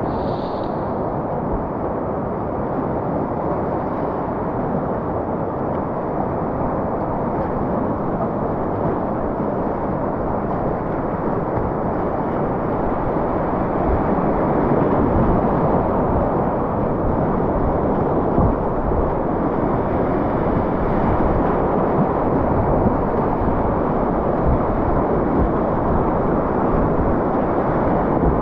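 Whitewater rapids rushing close around a kayak. The river runs at about 600 cfs. The rushing grows louder about halfway through as the boat runs down into the rapid.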